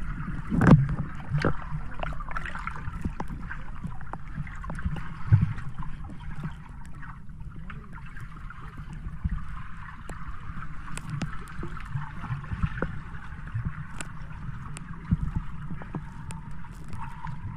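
Water heard from beneath the surface while swimming: a steady muffled rushing and low rumble, with scattered small clicks and a few dull thumps, the loudest about a second in.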